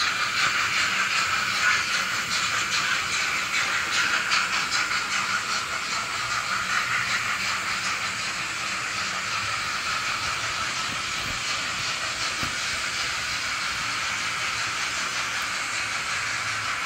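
Sound decoder of an Arnold N-scale model of the steam locomotive 41 001, playing steam-engine chuffing and hiss through its tiny onboard speaker, thin and lacking any low end. The exhaust beats are rhythmic and uneven in level at first, then settle into a steadier hiss about halfway through.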